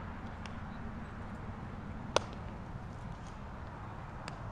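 A baseball smacking into a leather glove once, about two seconds in: a single sharp pop, with a fainter click near the end, over a steady low background rumble.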